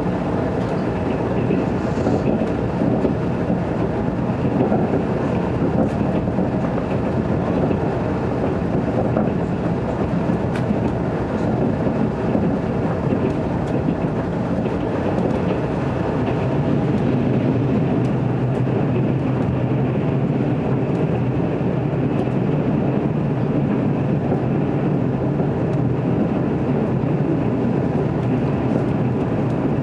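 Running noise heard inside the passenger cabin of a JR 381 series limited express electric train at speed: a steady rumble of wheels on the track.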